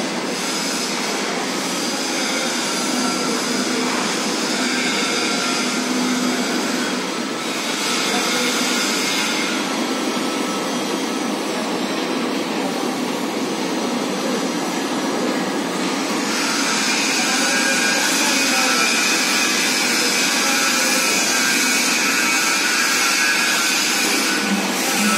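Mobile inclined belt conveyor running under power: a steady mechanical whine and hum from its drive. The sound brightens and grows a little louder about sixteen seconds in.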